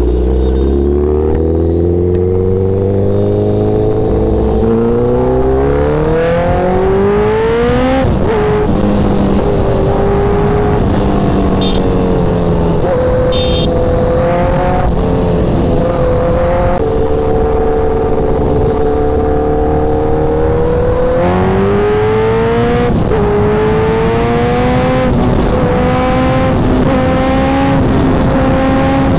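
Honda CBR1000RR superbike's inline-four engine accelerating hard through the gears, its pitch climbing for about eight seconds, then dropping at a gear change. It then runs near steady at speed and climbs again about two-thirds of the way through, over a constant rush of wind noise.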